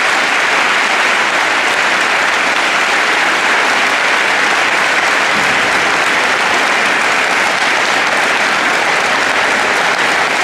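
A large audience of students applauding steadily, a dense, unbroken clapping.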